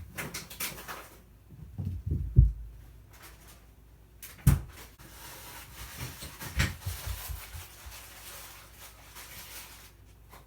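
House cats play-wrestling: bodies thumping against the floor, loudest about two seconds in and again about four and a half seconds in, among knocks and a few seconds of scuffling.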